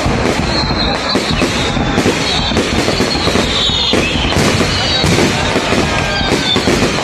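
Fireworks display: a steady, dense barrage of bangs and crackling as shells and comets burst overhead one after another.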